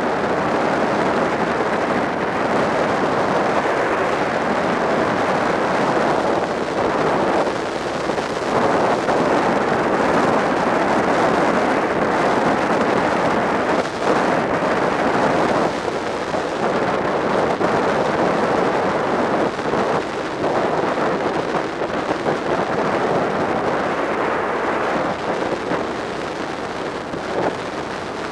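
Wind rushing over the microphone of a camera on a motorcycle riding at speed, with the motorcycle's running and road noise underneath. It is loud, and its level wavers up and down throughout.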